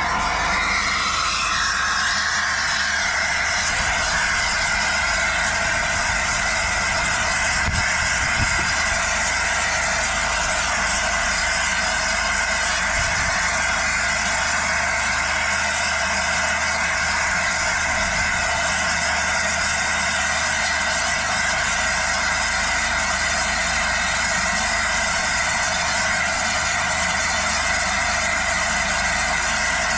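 Steady hiss of steam with a low hum underneath from an LNER A4 Pacific steam locomotive standing in steam, holding level and unbroken throughout.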